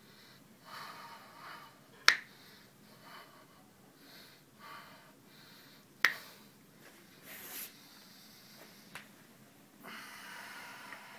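Two sharp snaps, about four seconds apart, as the client's fingers are pulled and slip from the therapist's grip during a hand massage, with soft rubbing of hands on skin and clothing between them.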